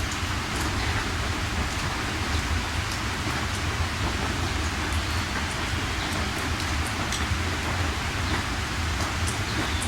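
Steady heavy rain, an even hiss with scattered drops ticking, over a steady low rumble.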